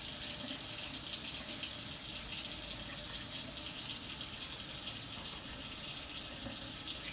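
Cold water running steadily from a kitchen tap into a stainless steel sink.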